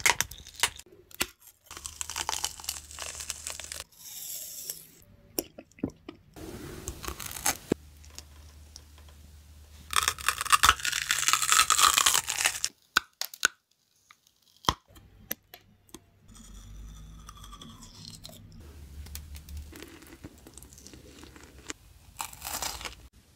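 Close-miked ASMR eating: a string of short clips of biting and chewing, with loud crunching of celery sticks around the middle and the crunch of a chocolate wafer bar near the end. Cuts between the clips leave abrupt stops and a brief silence.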